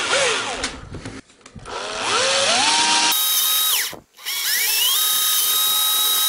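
Wagner D-168 CP cordless drill whining up to speed, running steadily, then winding down, twice, as it bores a hole in a thin clear plastic case. A short noisy burst comes first.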